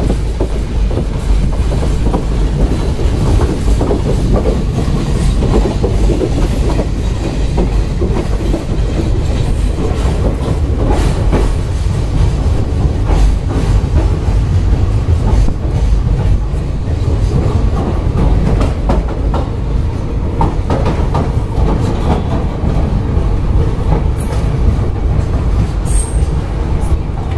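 Passenger train running on the rails, heard from inside the coach: a loud, steady rumble of wheels on track with frequent clicks and rattles, and a few brief high squeaks from the wheels.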